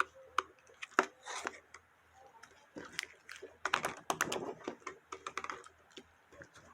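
Slime being played with, making irregular sticky clicks and pops, with a denser run of crackling about four seconds in.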